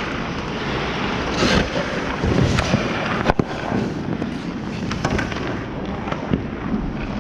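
Skate blades scraping and carving on rink ice, with one sharp knock about three seconds in and a few lighter clicks later.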